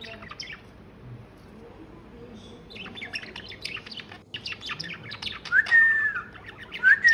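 Pet budgerigars chirping and chattering in their cage: rapid twittering that starts a few seconds in, with two louder whistled calls near the end.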